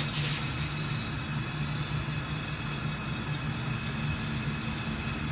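Steady hiss over a low hum as pressurised flushing liquid sprays out of an open refrigerant pipe on an air-conditioner outdoor unit during flushing of a burnt-out compressor circuit.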